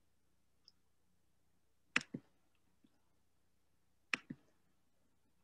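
Two pairs of computer mouse clicks, press and release, about two seconds apart, with near quiet between them.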